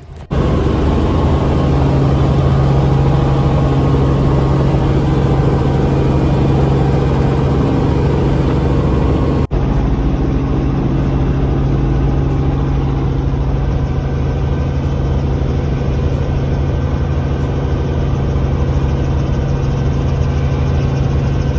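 Light helicopter's engine and rotor running at a steady, loud drone with a strong low hum, cut briefly about nine and a half seconds in.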